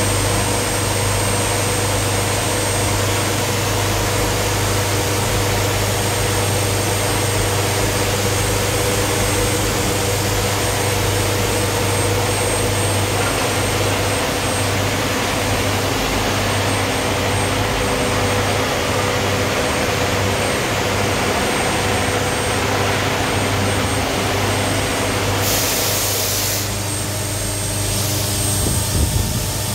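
CNC milling machine engraving a metal roller die turned on a rotary chuck, its spindle and cutter running under flowing coolant: a steady machine hum with a thin high whine and hiss. Near the end, a louder hiss comes in for about a second.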